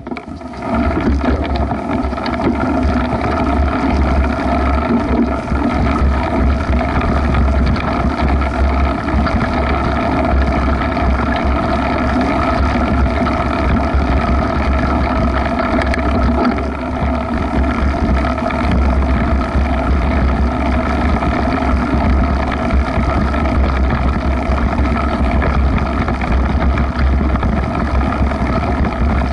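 A mountain bike ridden along a grassy trail through tall prairie grass: tyres rolling through grass, with wind rumbling on the action camera's microphone. A steady, loud drone with a deep rumble, a brief dip about sixteen seconds in.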